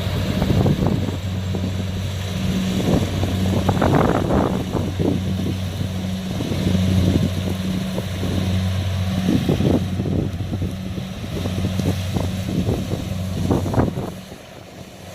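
Kubota DC70 combine harvester's diesel engine running with a steady drone, with wind buffeting the microphone in irregular gusts. Near the end the level drops sharply and the engine drone fades.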